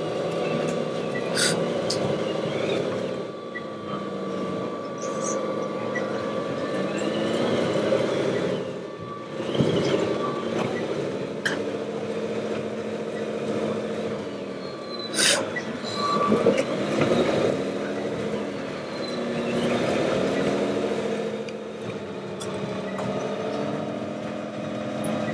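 Engine sounds of scale RC model trucks and construction machines, their pitch rising and falling as they rev up and slow down, with a few sharp clicks and knocks.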